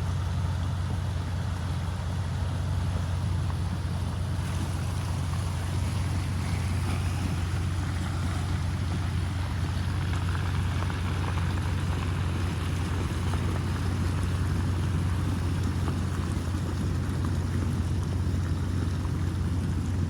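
Flash floodwater rushing down a desert creek: a steady, unbroken rushing noise with a heavy low rumble.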